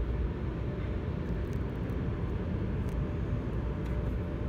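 Tunnel car wash machinery running, a steady low noise with a faint constant hum, muffled through the viewing window's glass.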